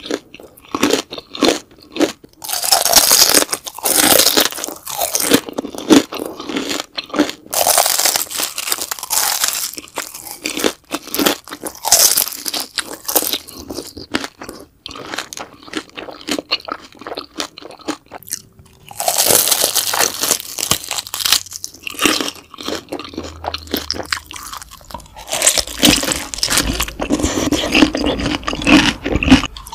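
Close-miked crunching and chewing of crispy fried beef intestines (daechang): loud crisp bites, then wet chewing, repeated in bursts with brief pauses.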